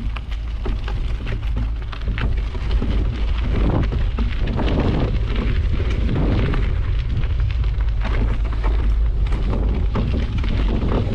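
Bicycle riding over a bumpy unpaved dirt trail: tyres crunching on the ground and the bike rattling with many sharp clicks over bumps, over a steady wind rumble on the action camera's microphone.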